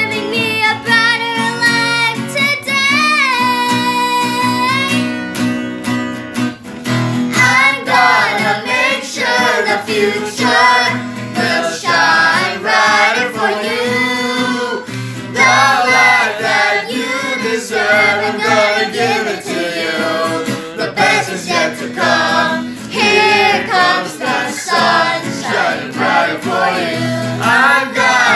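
A group of children and adults singing a song together to an acoustic guitar, with a long held note a few seconds in.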